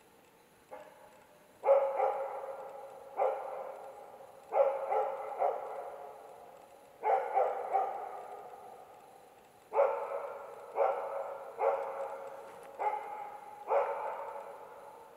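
Karelian Bear Dog barking at bay at a bear: about fifteen loud, irregular barks, some single and some in quick runs of two or three, each trailing off in a long fading echo.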